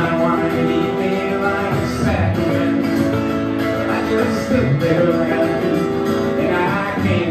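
Live country-rock band playing an instrumental passage, electric guitar and strummed acoustic guitar together.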